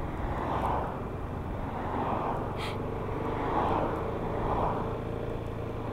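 Yamaha XMAX 300 scooter's single-cylinder engine running steadily at low road speed, with wind noise over a helmet-mounted camera microphone.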